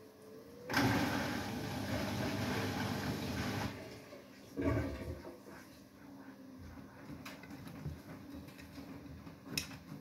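Beko WTK104121W front-loading washing machine: its motor whine fades, and a loud rush of water and wet laundry tumbling in the drum starts about a second in and lasts about three seconds. A second, shorter surge follows, then quieter sloshing with a few light clicks.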